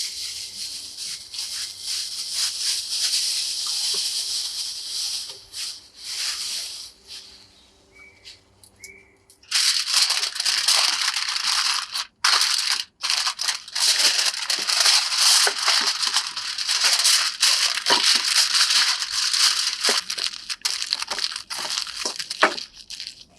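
Aluminium foil crinkling and rustling as food is folded up in it, in two long stretches with a short quiet spell about a third of the way in.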